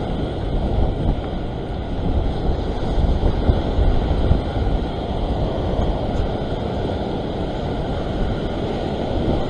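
Heavy surf breaking and churning around a rock ledge, with steady wind buffeting the microphone.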